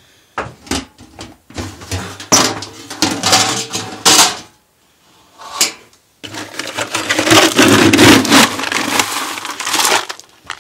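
A scoop scraping and rattling through dry pellet feed in a galvanized metal can, with clatters of the metal lid, in two long spells with a short pause between.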